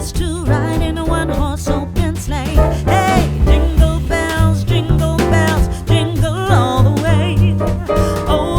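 Upbeat background music: a song with a singing voice over a bass line and a steady beat.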